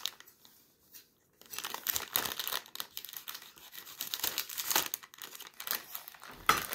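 Thin plastic bread bag crinkling and rustling as it is handled and pulled open, starting about a second and a half in after a quiet moment.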